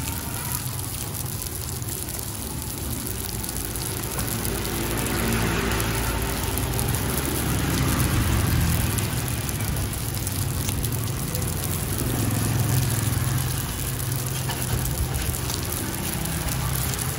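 Bánh xèo batter and egg sizzling in several small pans over gas burners: a steady hiss with a low rumble underneath.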